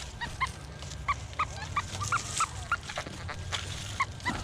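Deus metal detector giving about ten short, irregular beeps in pitch-tone mode as the coil sweeps over targets in the ground.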